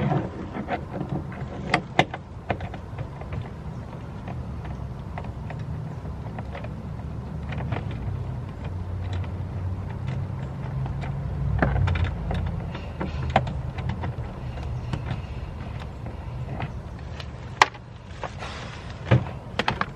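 Door panel being worked loose from a 1992 Camaro's door, with scattered sharp clicks and snaps over a steady low rumble.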